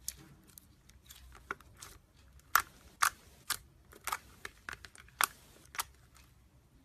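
A run of sharp clicks and pops, about eight loud ones in the second half, as slime is squeezed and worked by hand and its trapped air pops.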